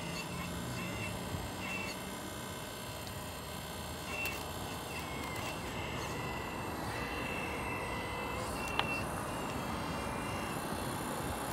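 Radio-controlled model excavator with a rock grapple working: a high motor whine that starts and stops as the boom and grapple move, over a steady hiss, with a couple of sharp clicks.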